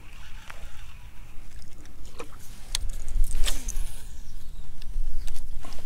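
Fishing reel in use while casting and retrieving: a whirring that falls quickly in pitch about three seconds in as line spins off the spool, with scattered sharp clicks and ticks of the reel. A steady low rumble runs underneath.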